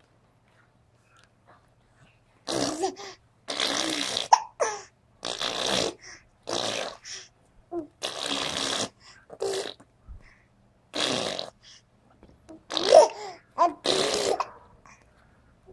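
A person giggling and making fart noises with the mouth, in a dozen or so short bursts after about two and a half seconds of quiet.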